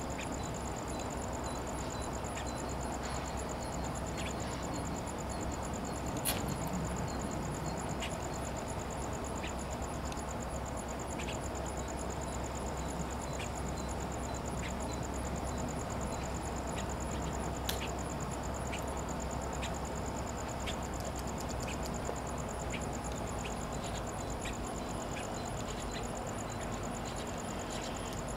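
Insects buzzing steadily at a high pitch with a fast pulsing, and a quicker repeating chirp beneath, over a low steady rumble. A few sharp clicks, the loudest about six seconds in and again near the middle.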